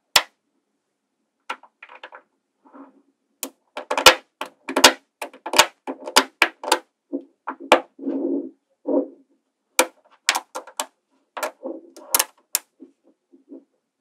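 Small metal magnetic balls clicking and snapping together as they are handled, in irregular sharp clicks with a few softer rattles between them.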